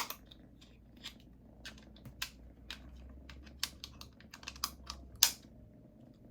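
Irregular plastic clicks and taps from a new wireless keyboard being handled, with a sharp click right at the start and another about five seconds in.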